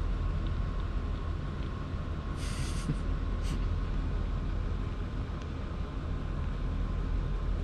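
Steady low rumble of room noise with a faint steady high tone over it, and a short hiss about two and a half seconds in, with a shorter one about a second later.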